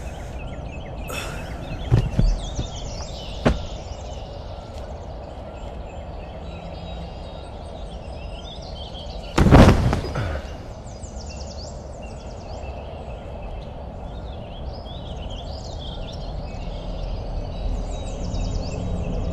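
Outdoor ambience of small birds chirping over a steady background hiss. Two sharp knocks come about two and three and a half seconds in, and a loud burst of noise lasting about a second comes about halfway through, the loudest sound. A low rumble swells near the end.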